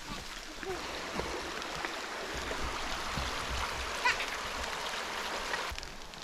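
River water flowing in a steady rush that cuts off suddenly near the end.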